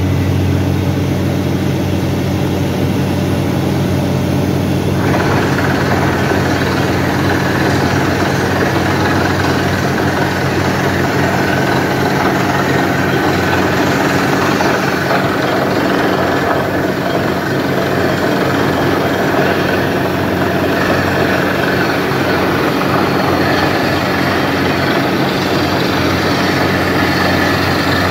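Borewell drilling rig and its ELGi PG 1200S-330 air compressor running at a steady, loud engine note; a noisier, higher layer joins about five seconds in.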